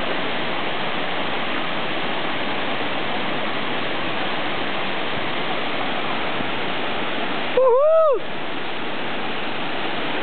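Steady rush of a waterfall. About eight seconds in, a person lets out one short whooping shout that rises and falls in pitch.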